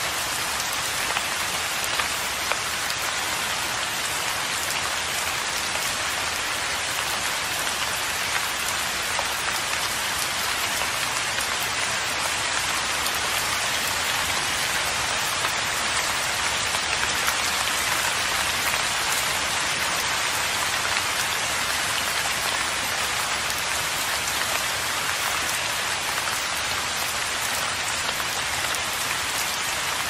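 Steady rain falling: an even hiss with scattered drop ticks.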